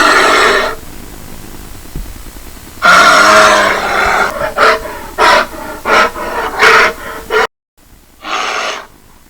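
A bear roaring and growling: one roar at the start, a longer roar about three seconds in, then a quick run of short growls, and a quieter roar near the end.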